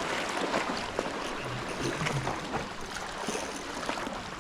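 Steady wash and trickle of moving water, with a few faint clicks.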